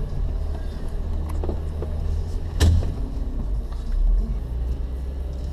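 A car's steady low rumble with one sharp, loud pop about two and a half seconds in, and a few fainter clicks a second or so before it: the popping noise the car is making.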